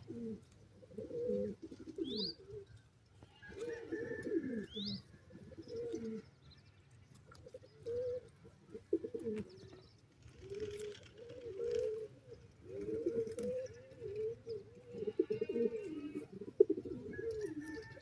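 Domestic pigeons cooing over and over in low, rolling phrases, several birds calling one after another. Two short, high chirps cut in, about two and five seconds in.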